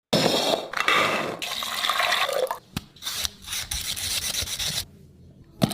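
Scraping, rasping noise of food being prepared in a kitchen, in irregular strokes, with a sharp click about halfway and a knock at the very end.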